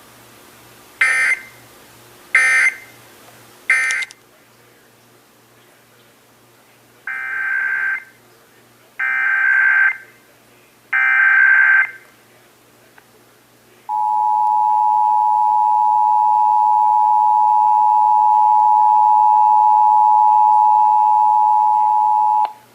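Emergency Alert System tones: three short data bursts of the end-of-message code, then a few seconds later three longer data bursts of a SAME header. These are followed by the EAS two-tone attention signal, a steady two-pitch tone held for about eight and a half seconds and cut off just before the end.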